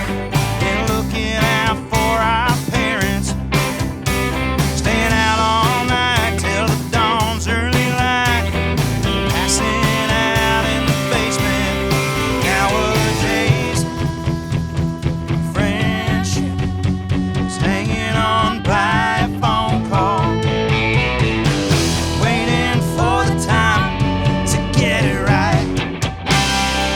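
Live country-rock band playing an original song: drums, bass and electric guitar, with a vocal or lead guitar line over the top.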